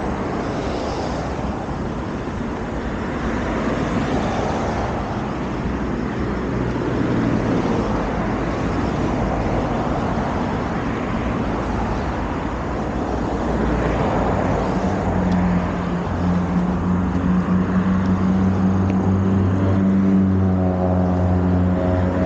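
Road traffic: a steady wash of tyre and engine noise from passing cars that swells and fades. About two-thirds of the way through, a steady low engine hum comes in on top.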